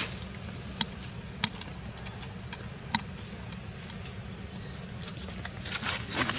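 Baby macaque drinking milk from a small carton held to its mouth: a few sharp sucking clicks, then dry leaves rustling near the end as it moves about on the ground.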